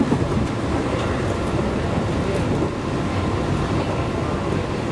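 JR 211 series electric train running along the line: a steady rumble of wheels on the rails, with a few faint clicks.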